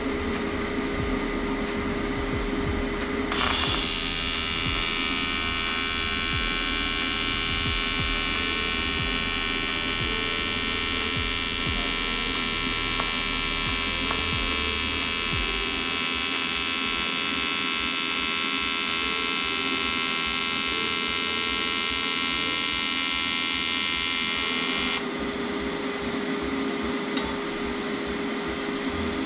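AC TIG welding arc on aluminum from an AHP AlphaTIG 201XD: a steady, high electric buzz that strikes about three seconds in and cuts off suddenly a few seconds before the end. A constant low hum runs underneath.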